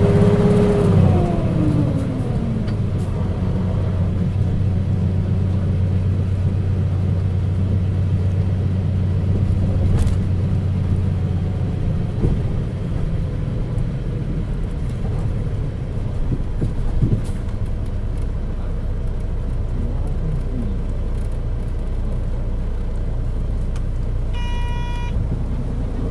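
Mitsubishi Fuso KC-MP617K city bus (Nishinippon body) heard from on board, running with a steady low rumble after a whine that falls in pitch over the first two seconds. Its running sound is abnormal, far from the normal engine note, which the uploader suspects comes from some fault or trouble. A short electronic beep sounds near the end.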